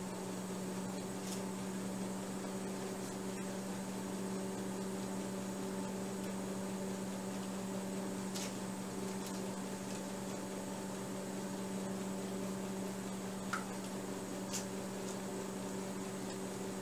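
Steady electrical hum with a strong low tone and fainter overtones, with a few faint clicks.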